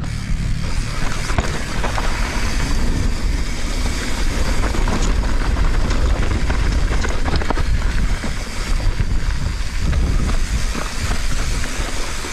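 Mountain bike descending a dirt trail: tyres rolling over dirt and rock, with the chain and frame rattling in quick short clicks, and wind buffeting the microphone.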